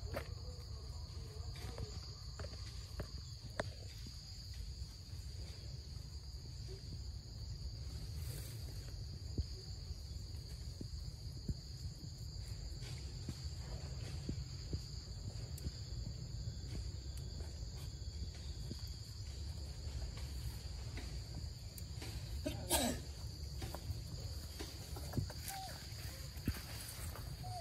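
Insects chirring steadily, a continuous high-pitched drone, over a low steady rumble. Scattered light clicks and rustles, with a louder rustle near the end.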